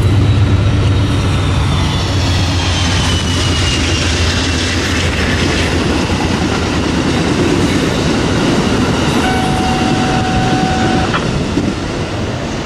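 Amtrak passenger train passing at speed, its wheels running over the rails, with a thin high squeal slowly falling in pitch over the first few seconds. The sound eases off slightly as the last car goes by.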